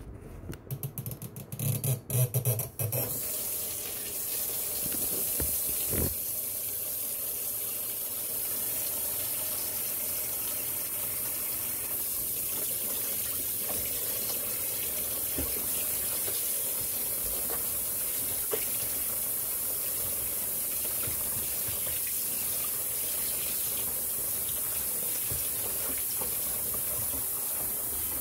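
Kitchen tap running steadily into a plastic litter box in a metal sink as it is rinsed out, after a few knocks and clatters in the first three seconds.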